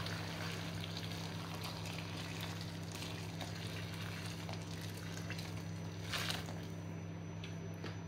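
Water pouring from a saucepan into a wide pan of chopped turnip and pumpkin, a steady splashing hiss, ready for the vegetables to be boiled soft. A steady low hum runs underneath.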